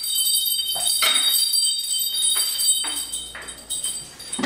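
Small metal chime tinkling: light repeated strikes with high ringing tones that hang on and fade away near the end.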